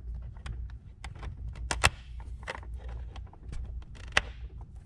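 Scattered metallic clicks and scrapes of long needle-nose pliers working a hose clamp onto a rubber hose, with a sharper click about two seconds in and another near the end, over a low steady hum.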